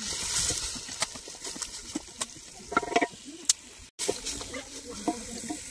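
Hands and a wooden stick mixing pieces of goat meat into spiced oil in a steel cooking pot, with scattered knocks and scrapes against the pot.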